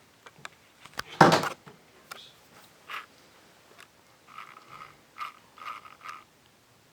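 A ferret with a cold sneezing once, sharply, about a second in, then a run of four or five short nasal snuffles in the last couple of seconds.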